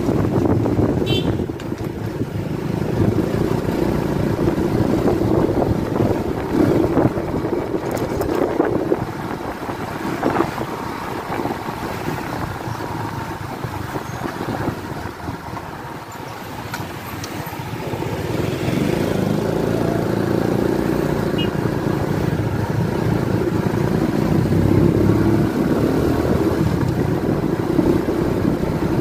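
Riding a motorcycle: wind rushing over the microphone with the engine running underneath. It eases off briefly around the middle, as if slowing, then picks up again and stays loud.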